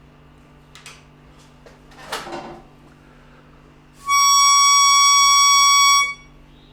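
A single brass reed organ reed, out of the organ, sounding one steady high note for about two seconds as air is drawn over its tongue, after a short breathy rush of air. The reed speaks clearly now that a speck of dirt stuck between the tongue and the base has been cleaned out.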